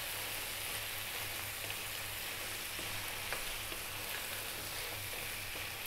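Chicken pieces, chunky potatoes and onion frying in oil in a non-stick pan, a steady sizzle, with a few light taps of a wooden spoon as the spices are worked in.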